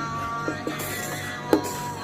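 Background music with held tones and a few sharp beats.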